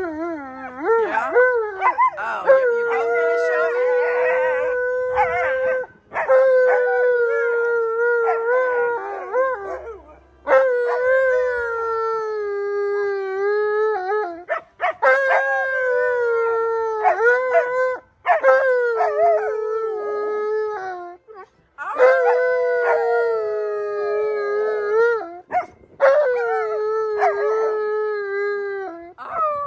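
Alaskan malamute howling: a series of long drawn-out howls, each holding a steady pitch and dropping at the end, with short breaks for breath between them. The first few seconds are more wavering.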